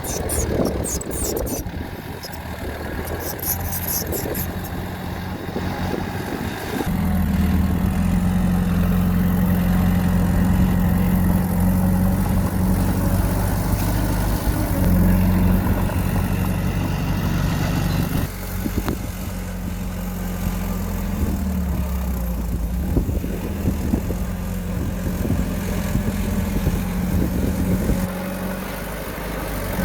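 Diesel engine of a heavy earth-moving machine running, rising to a louder, steady working note about seven seconds in and easing back slightly after about eighteen seconds. A fast, high rattle sounds in the first few seconds.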